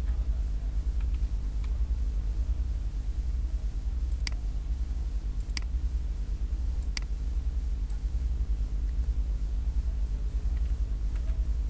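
Steady low electrical hum from the recording setup, with three sharp clicks about four, five and a half and seven seconds in, typical of computer mouse clicks.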